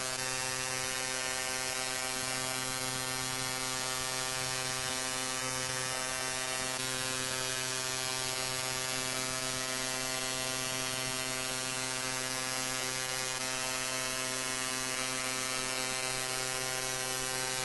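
A steady, buzzing electronic tone made of many stacked pitches, held unchanged at a constant level.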